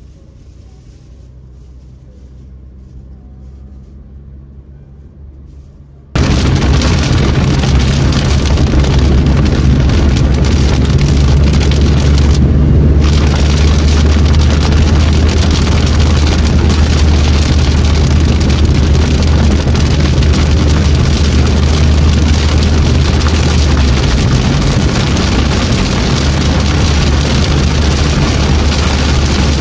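Low, quiet hum inside a moving car, then about six seconds in a sudden jump to loud, steady heavy rain drumming on the car's roof and windshield over a deep tyre-and-road rumble, heard from inside the cabin.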